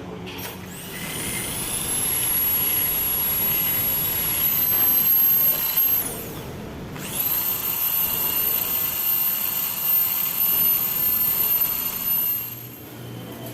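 High-speed electric power tool whining as it runs, in two runs: it spins up at the start, winds down about six seconds in, starts again a second later and stops near the end.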